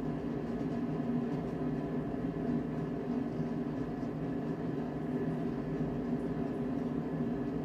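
Steady mechanical hum, a constant machine drone of several steady tones that neither rises nor falls.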